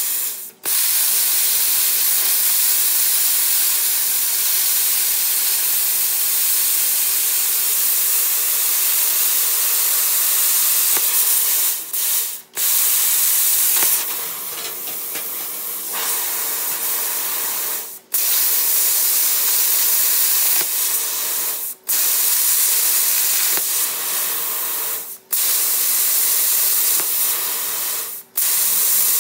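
Handheld plasma cutter's arc hissing loudly as the torch cuts through sheet metal, cutting out and restarting in six brief breaks, with a quieter, softer stretch about halfway through.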